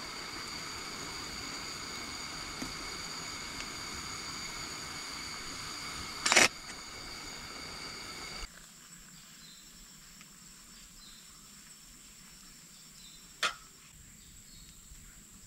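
Portable butane gas stove burner hissing steadily under an aluminium camping kettle, with a sharp metal clank about six seconds in as the kettle lid goes on. After about eight seconds the hiss cuts off, leaving quieter forest background with a single click near the end.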